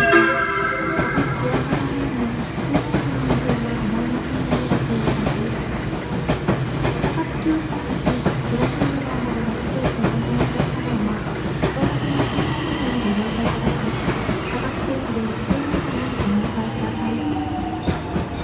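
JR West 225 series and 223 series electric train arriving at a platform and braking: wheels clicking over rail joints, with a motor whine that rises and falls and a high squeal for about two seconds two-thirds of the way in. A loud pitched tone sounds during the first second.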